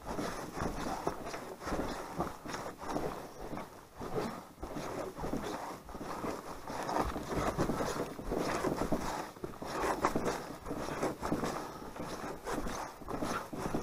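Footsteps crunching and rustling along a needle-strewn forest trail, an uneven run of steps from a person walking under a carried canoe on a portage.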